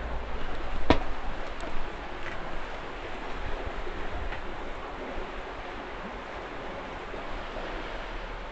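Steady rushing outdoor noise of wind, buffeting the microphone with a low rumble for the first couple of seconds and then settling, with one sharp click about a second in.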